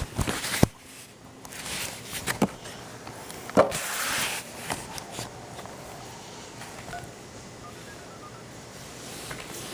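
Handling of a VHS tape and its case: several sharp clicks and knocks in the first four seconds, the loudest with a short rustle after it, then only quiet background.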